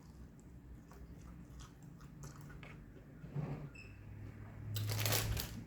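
Close-up chewing of crispy fried chicken, mostly soft and quiet, with a loud crunchy bite near the end.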